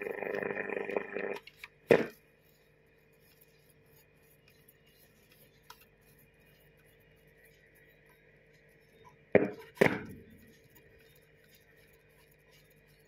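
Grundig Satellit 2000 shortwave receiver giving out loud static with whistling tones, which cuts off suddenly about a second in. Then only a faint hum and whine from the set, with a sharp switch click about two seconds in and two more clicks in quick succession about nine and a half seconds in as the band is changed. No clear station comes in.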